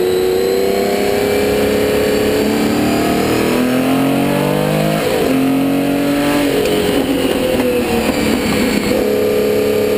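Porsche 917K's air-cooled flat-12 racing engine heard from on board, loud throughout. Its pitch climbs under acceleration and falls as the car slows, with sudden jumps in pitch as gears are changed, about halfway through and again near the end.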